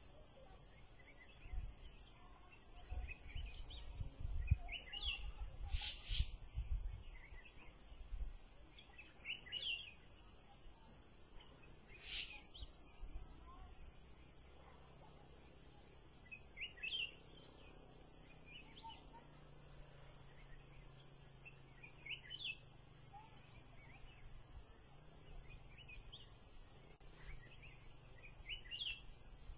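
Insects trilling steadily in two high, unbroken tones, with a short rising chirp from another small animal every few seconds. Low thuds and bumps of the boat being handled come in the first several seconds, and two sharp clicks come about six and twelve seconds in.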